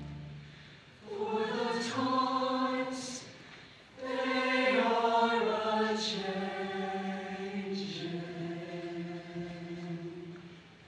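Show choir singing sustained chords in close harmony, in two phrases: a short one, then a longer held chord that steps down in pitch and fades out near the end, the close of a number.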